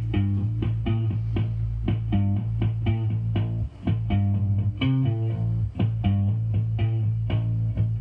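Music with a steady beat: plucked guitar notes about four a second over a continuous bass line.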